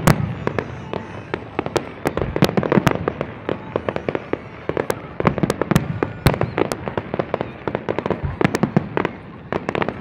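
Fireworks display: a dense, continuous run of sharp bangs and crackling bursts, many overlapping, with no break.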